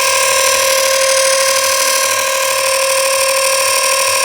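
LiftBoard dual-motor electric skateboard drive giving off a loud, steady electric whine that holds one unchanging pitch; this is the weird noise the board makes.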